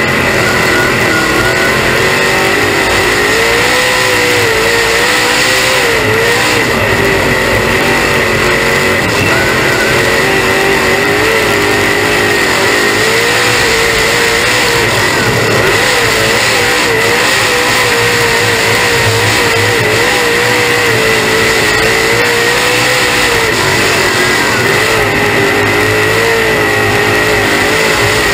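Dirt late model race car's V8 engine at racing speed, heard from inside the cockpit, its pitch rising and falling again and again with the throttle. A steady high whine runs over it.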